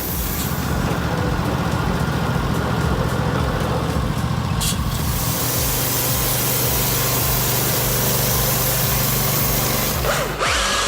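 An engine running steadily with an even low pulse, a sharp click about four and a half seconds in, and an abrupt change just before the end.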